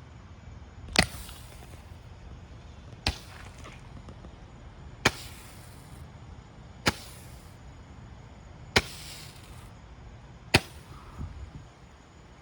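Brothers Torchbearer multi-shot consumer firework launching stars, six sharp pops about two seconds apart, each followed by a short hiss.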